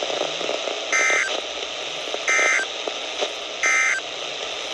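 Three short bursts of warbling digital data tones from a NOAA Weather Radio broadcast, about a second and a half apart, over steady radio hiss: the Emergency Alert System (SAME) end-of-message codes that close the tornado warning.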